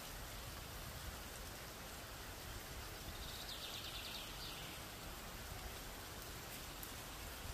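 Steady hiss of heavy rain falling on the reservoir's water surface and the vegetation around it. About three seconds in, a short high trill sounds for just over a second.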